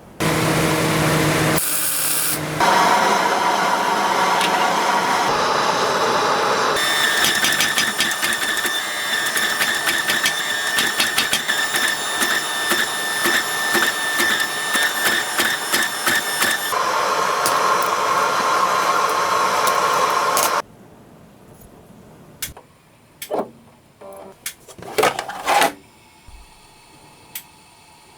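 Carvera Air desktop CNC mill cutting copper: the spindle and cutter run with a steady high whine and rapid chattering ticks, the sound shifting abruptly several times before stopping suddenly about twenty seconds in. A few short, separate noises follow near the end.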